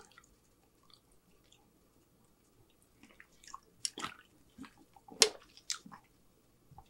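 A person gulping soda from a can: a quick run of short swallows and slurps starting about three seconds in, the loudest just after five seconds, after a quiet start.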